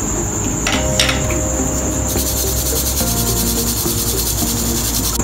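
A steady, high-pitched cricket-like trill runs throughout and turns into a faster pulsing chirp about two seconds in. Two light metallic taps, a spoon against a flour sieve, come about a second in.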